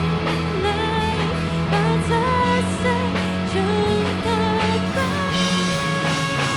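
Cantonese pop-rock song by a Hong Kong band, a singer over the full band, with long held notes coming in about five seconds in.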